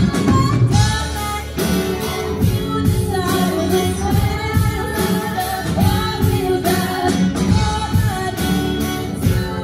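Female lead vocalist singing a country-rock song live with an amplified band: electric guitar and drum kit, with a second female voice on backing vocals.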